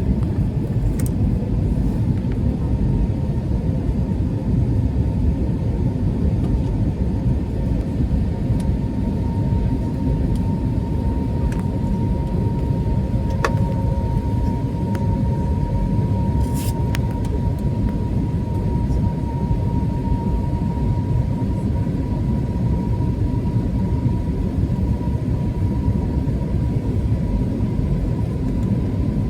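Airliner cabin noise during the landing approach: a steady low rumble of engines and rushing air, with a steady high engine whine over it and a couple of faint clicks.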